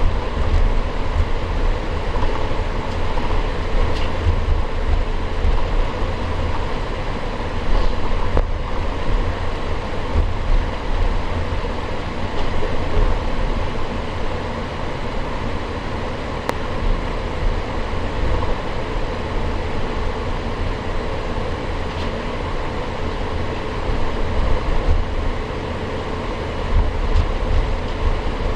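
Cabin noise of an Airbus A350-900 taxiing: an uneven low rumble from the wheels rolling over the taxiway, with the steady hum of the Rolls-Royce Trent XWB engines at idle thrust, heard from a window seat inside the cabin.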